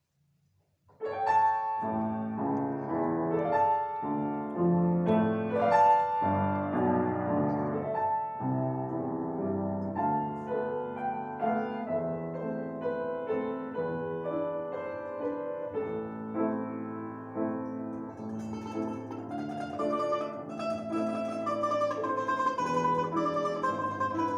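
A plucked string instrument playing a slow Russian folk melody over piano accompaniment, beginning about a second in; the playing grows fuller and higher in the last few seconds.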